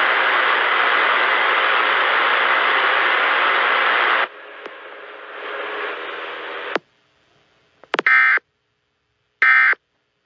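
Loud radio static hiss that cuts off abruptly about four seconds in, then fainter noise that drops to silence. Near the end come two short data-tone bursts of the Emergency Alert System end-of-message (EOM) code, about a second and a half apart.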